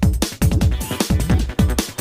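Electronic dance music with a steady beat of deep kick drums.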